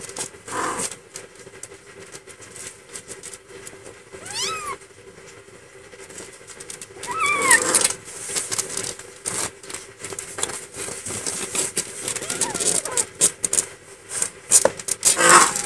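Nursing kittens mewing: three short high mews, about four seconds in, about seven seconds in and near the end, over rustling and scrabbling as they jostle for teats on the bedding.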